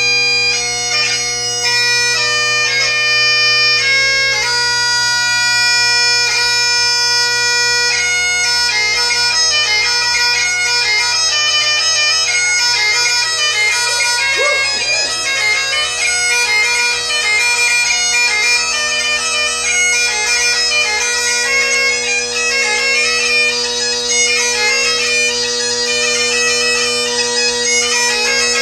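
Great Highland bagpipe played solo: steady drones under the chanter melody. The tune starts with held notes broken by quick grace-note flourishes, and about eight seconds in turns into a run of quicker notes.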